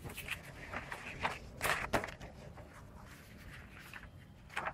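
Paper pages of a notebook being turned and leafed through: a series of short rustles and swishes, the loudest about two seconds in and another just before the end.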